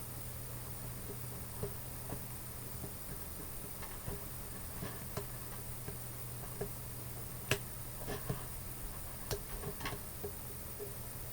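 Fishing tackle being handled: small metal clicks and light ticks at irregular intervals as a split ring, assist hooks and a metal jig are fitted together, with the sharpest click about seven and a half seconds in. A steady low hum runs underneath.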